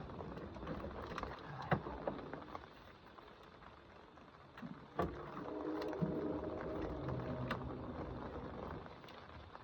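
Scattered clicks and knocks of hand work on metal parts, with a steady low hum for a few seconds in the middle.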